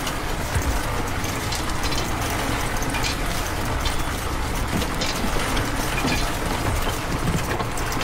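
A small motor-driven miniature conveyor belt running steadily, with gravel clicking and pattering as the stones drop off the belt into a toy railway wagon.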